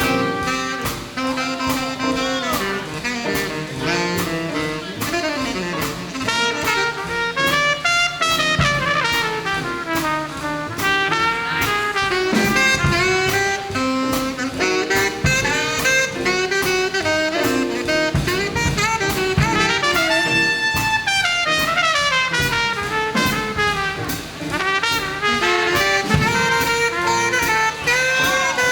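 Big band playing an instrumental swing passage: brass and saxophones over a steady drum-kit beat.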